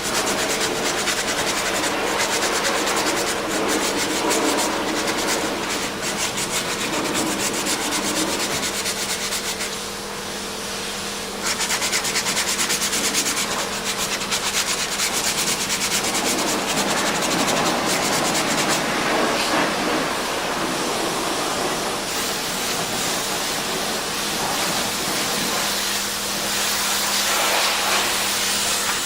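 Continuous rasping scrub of abrasive work on brake parts, such as sanding or wire-brushing, in fast, even strokes. It eases off about ten seconds in and picks up again harder, over a steady low machine hum.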